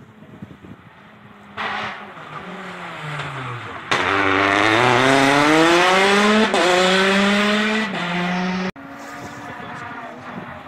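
Rally car engine at high revs: its note falls, then climbs steeply as the car accelerates, with a brief dip at a gear change. The sound breaks off suddenly about nine seconds in.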